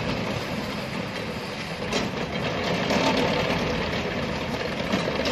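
Komatsu PC25-1 mini excavator running and travelling on its rubber tracks: steady diesel engine and a dense mechanical clatter, with a sharp knock about two seconds in and another near the end.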